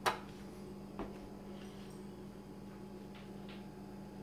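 A mini toggle switch under a kitchen cabinet clicking sharply, with a smaller second click about a second later.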